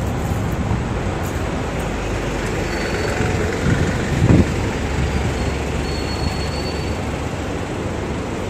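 Street traffic with a double-decker bus's diesel engine running close by, a heavier low rumble through the middle, over a steady hum of passing cars.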